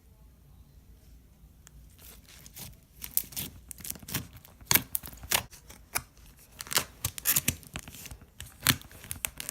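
Slime being squeezed and poked by hand, making irregular crackling, popping clicks that start about two seconds in.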